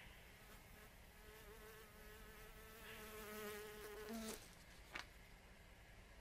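A housefly buzzing in flight: a faint, wavering buzz that swells over a few seconds and stops abruptly about four seconds in. A short click follows about a second later.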